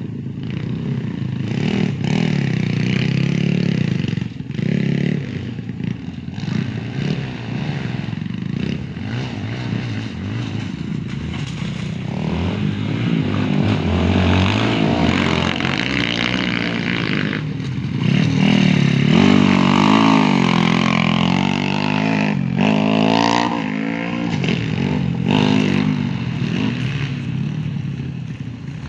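Honda XRM underbone motorcycle engines revving on a dirt track, the pitch rising and falling as riders open and close the throttle, loudest about two-thirds of the way through.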